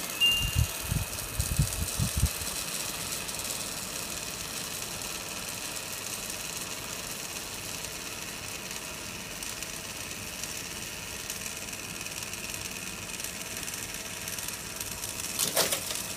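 Samsung air conditioner running with a steady fan noise while its coil is iced up. A few low thumps come in the first two seconds and a brief clatter near the end.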